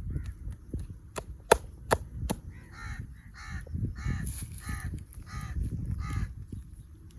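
Four sharp slaps in quick succession, the hand strikes of a head massage, followed by a bird calling about eight times in a row in short cawing notes. Low rubbing and handling noise runs underneath.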